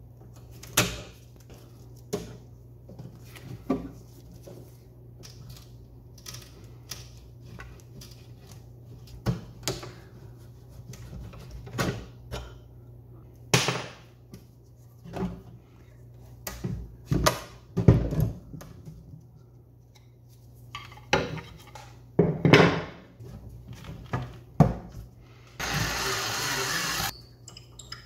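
Scattered clicks and knocks of steel water-pump pliers and wood as pins are worked out of the joints of an old wooden doll bed and the loose parts are handled, over a steady low hum. Near the end comes a loud burst of even rushing noise lasting about a second and a half.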